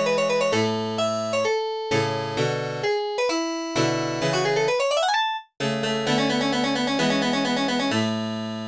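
Solo piano from MIDI playback playing the closing cadence of a classical sonata movement. Repeated chords lead to a quick rising scale run about four seconds in, then a brief silent break. A few final chords follow and end on a held chord that fades out.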